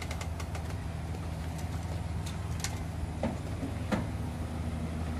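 Vehicle engine idling with a steady low hum, with a few faint clicks and knocks about halfway through.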